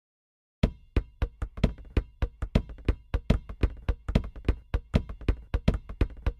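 Rhythmic knocking and tapping, about four sharp strikes a second of uneven loudness, starting suddenly about half a second in, with faint ringing tones under it.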